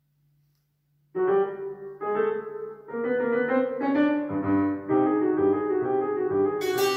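Hammered dulcimer struck with hammers. About a second in a tune begins: notes ring on and overlap as they are played.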